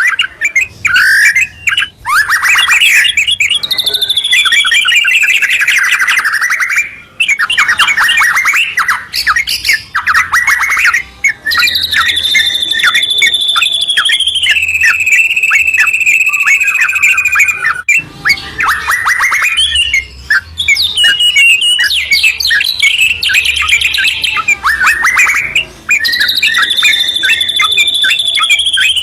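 White-rumped shama and yellow-vented bulbul singing loudly in a continuous duet of fast chattering trills and sweeping phrases. Long whistled notes glide slowly downward several times.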